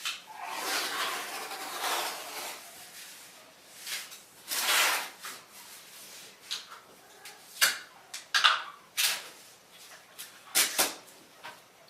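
Tape being pulled off a roll with ripping hisses and torn off, then pressed onto a mirror with short crackles and clicks.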